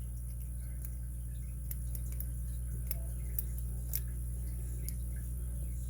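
Faint, irregular clicks of a lock pick and tension tool working the pins in a Master Lock 930/950 padlock's six-pin core, over a steady low hum.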